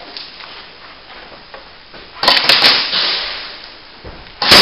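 Airsoft guns firing: a quick burst of three or four sharp shots about two seconds in, each echoing and dying away in the corridor, then another loud single shot just before the end.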